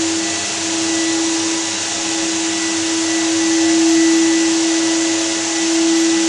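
Walk-behind floor sander running steadily on a wooden parquet floor: a steady motor hum over a broad hiss that swells and eases a little as the machine is pushed along.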